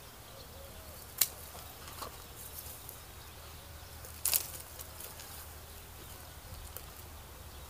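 Two short, sharp woody snaps about three seconds apart, the second one doubled, as cut grapevine canes are handled and broken on the ground after pruning.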